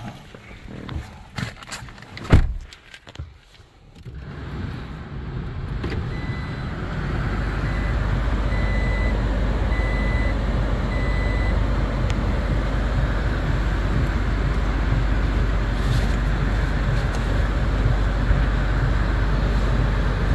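Handling knocks and one sharp thump about two seconds in, then the 2017 Toyota Tacoma's steady running hum heard from inside the cab. A short in-cab beep sounds about once a second for several seconds while the truck is in reverse.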